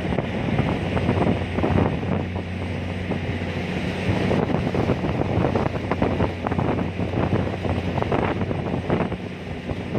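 A ferry's engine hums steadily, with strong wind gusting and buffeting against the microphone.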